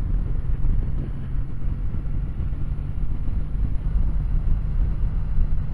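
Kawasaki W800's air-cooled parallel-twin engine running steadily while the motorcycle cruises, with wind rushing past.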